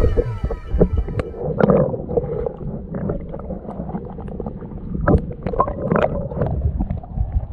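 Water sloshing and gurgling around a camera held underwater, heard as a muffled low rumble with irregular sharp clicks and knocks from the camera being moved and handled.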